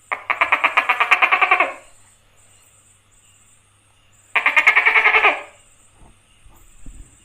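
Tokay gecko calling: two rapid pulsed calls, each a fast run of about a dozen pulses a second, the first about a second and a half long and the second about a second long, a few seconds apart.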